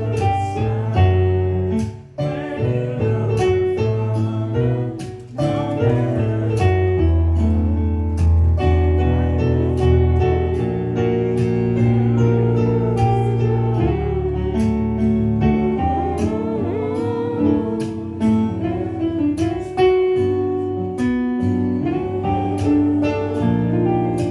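Live solo performance on a Yamaha MO8 synthesizer keyboard: sustained chords with sharply struck notes, and a man singing over them into the microphone.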